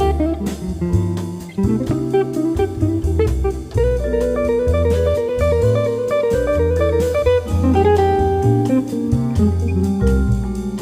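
Background music: a guitar-led instrumental with bass and a drum kit keeping a steady beat.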